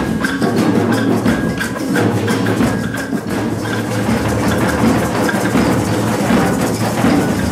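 A batucada group playing hand percussion together, with wood-block and bell-like strikes and a snare drum: a dense clatter of many overlapping hits.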